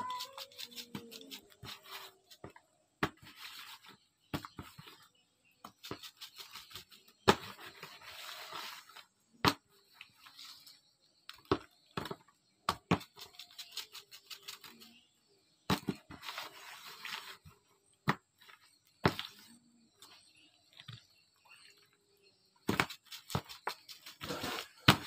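Raw fish being salted by hand in a plastic basin: irregular clicks and knocks of fish and hands against the basin, with rustling bursts of salt and a plastic bag.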